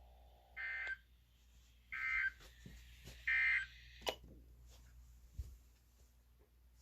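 Weather radio sending three short bursts of Emergency Alert System SAME digital data tones, about a second and a half apart, the end-of-message code that closes the alert, followed by a sharp click.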